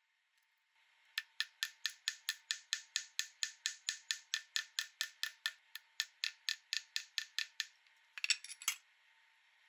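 Light, even taps of a small hammer on a silver bike-chain link resting on a steel bench block, about four taps a second, each with a short bright ring; near the end a quick rattle of several clicks.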